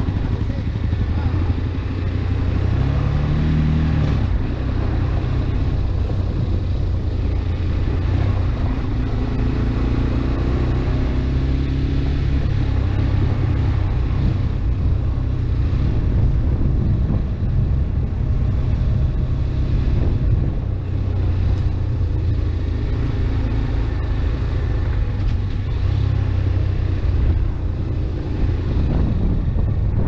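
Motorcycle engine running steadily while riding a dirt track, with a brief rev about three seconds in and wind rush over it.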